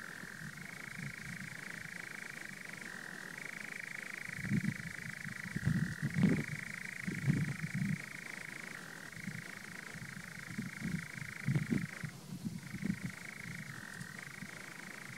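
European nightjar churring: one long mechanical reeling trill that steps between a lower and a higher pitch every few seconds and breaks off briefly about three-quarters of the way through. Irregular low thumps sit underneath.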